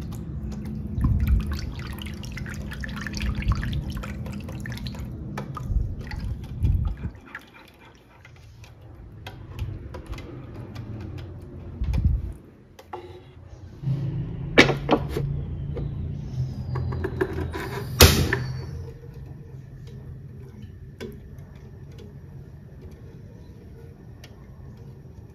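Silicone whisk stirring a milk mixture in a pot: irregular liquid sloshing and splashing, with a couple of sharp knocks about 15 and 18 seconds in, quieter toward the end.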